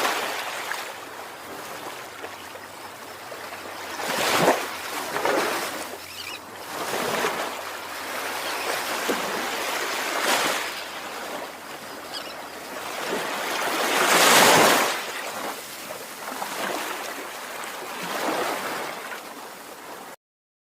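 Ocean surf: waves breaking and washing in, swelling and falling every few seconds, the loudest surge about fourteen seconds in.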